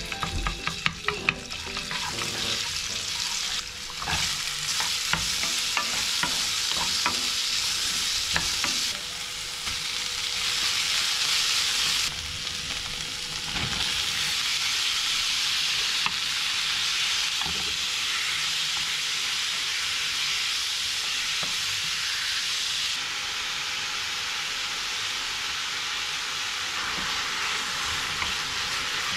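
Sliced onion, carrot, cabbage and beef sizzling as they are stir-fried in a nonstick wok, with a steady hiss of frying and stirring sounds. There are a few sharp ticks in the first couple of seconds.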